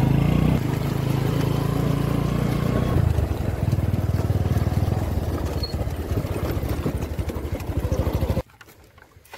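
Small motorcycle engine running while riding, its pitch dropping a little about three seconds in. The sound cuts off suddenly near the end.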